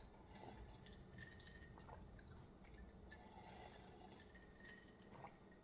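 Faint sounds of sipping from a glass of iced Coke: soft liquid sounds with scattered small clicks of ice against the glass.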